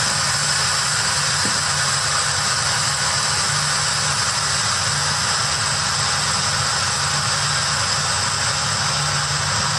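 Instant Pot electric pressure cooker venting steam through its opened pressure-release valve: a loud, steady hiss as the remaining pressure is let out after cooking.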